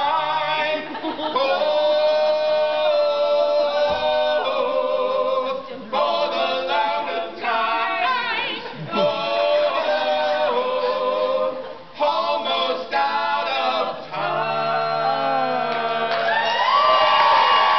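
Small a cappella vocal group, men's and a woman's voices singing together in harmony, with held notes broken by short pauses.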